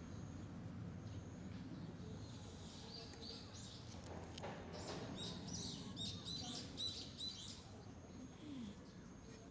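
Small birds chirping in short, high, repeated notes, thickest from about three to seven seconds in, over a low steady background rumble.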